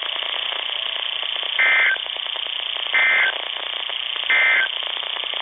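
NOAA Weather Radio broadcast on a Midland weather alert radio: three short, identical, screechy data bursts about 1.3 seconds apart over steady radio hiss. The bursts are EAS SAME digital tones, and their brevity marks them as the end-of-message signal that closes an alert.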